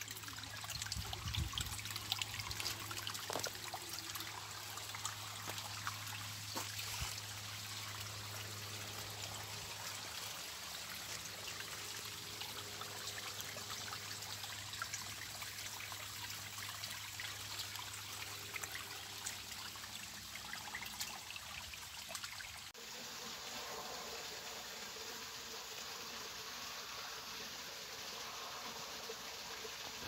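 Water trickling steadily along a small muddy stream channel, over stones and through weeds.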